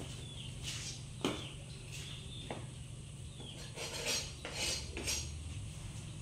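A few light knocks and clinks, then crisp rustling about four seconds in, over a steady low hum.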